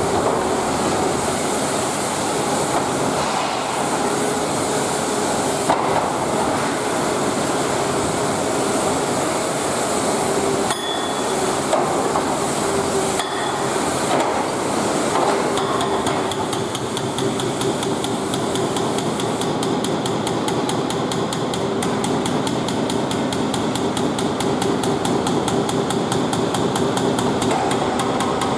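Hydraulic breaker hammer mounted on an excavator, striking continuously with rapid, evenly spaced blows. The blows become very regular from about halfway through.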